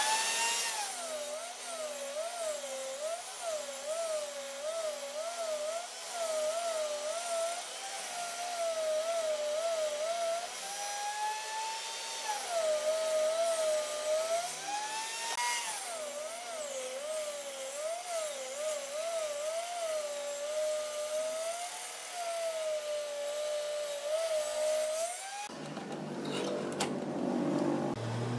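Table saw ripping a wooden board. The motor's whine starts suddenly, wavers up and down in pitch as the wood is fed through the blade, and rises briefly in the middle before dropping again under load. It cuts off a few seconds before the end and gives way to a broader hiss.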